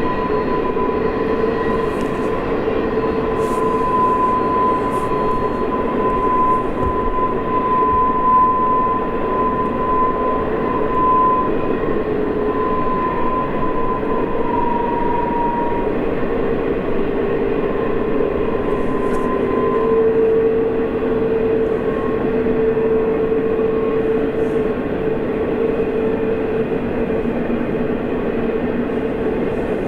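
Long double-stack container train rolling down a grade: a steady rumble of wheels on rail, with drawn-out whining tones over it that shift in pitch.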